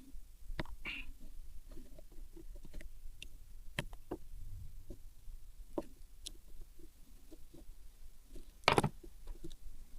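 Scattered light clicks and taps of small parts and hand tools being handled on a workbench, with one louder clatter near the end.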